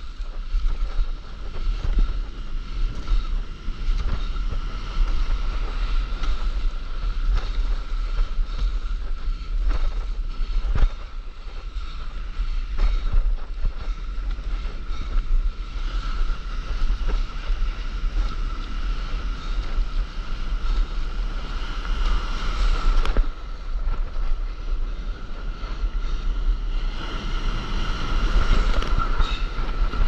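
Wind buffeting the microphone over the rush of breaking whitewater and paddle strokes splashing, as a stand-up paddleboard is paddled out through the surf. The rushing and splashing swell louder a little past the middle and again near the end.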